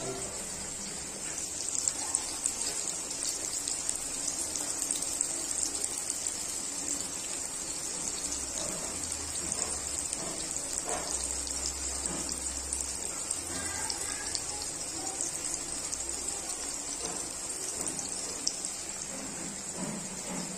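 Hot oil sizzling and crackling in woks, with eggplant slices shallow-frying and a fish curry bubbling, a steady hiss with fine crackles throughout.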